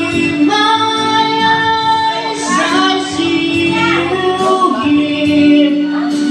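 Amplified live singing into a microphone, with long held notes over musical accompaniment.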